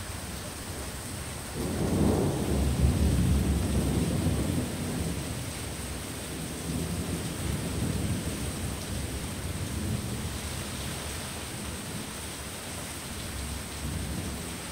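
Thunder over steady heavy rain: a deep rolling rumble breaks in about a second and a half in, is loudest for the next couple of seconds, then dies away slowly in waves, with a weaker swell near the end.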